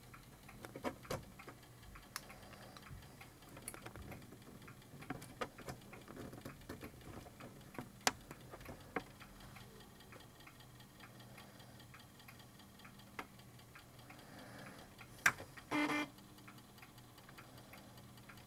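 Faint, irregular clicks and ticks from an opened Amiga 3.5-inch floppy drive whose head stepper motor is being turned by hand with a screwdriver to align the read/write head on the track. A louder click and a short buzz come near the end.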